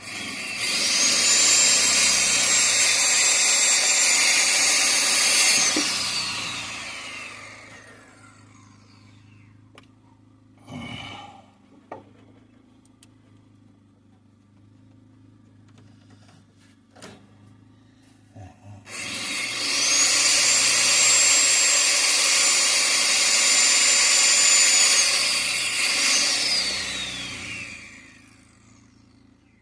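Electric power tool run twice at full speed, each run about six seconds long, with a high whine that falls away over a couple of seconds as the motor spins down after each release. A few short knocks and clicks fall between the two runs.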